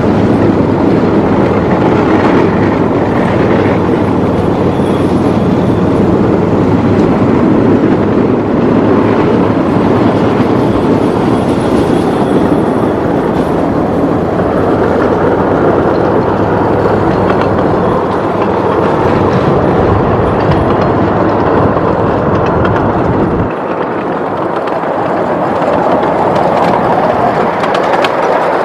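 Miniature ride-on train running along its track, with a loud, steady rumble of wheels on rail and faint high squeals now and then. A few seconds before the end, the deep rumble suddenly drops away.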